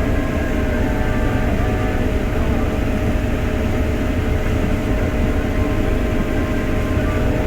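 Case IH Axial-Flow 7250 combine running steadily while harvesting grain sorghum with a 35-foot MacDon draper header. It is a loud, even drone: several steady tones over a low rumble, with no change in speed.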